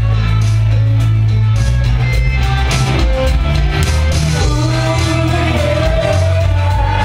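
Loud rock music with a heavy bass line and regular drum hits; a wavering melodic line, voice or lead instrument, comes in during the second half.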